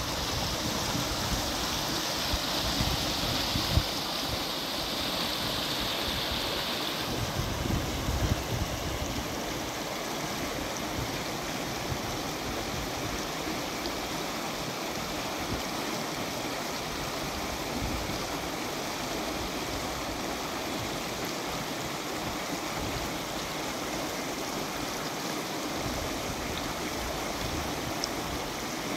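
Steady rush of flowing water, with a few low bumps in the first several seconds.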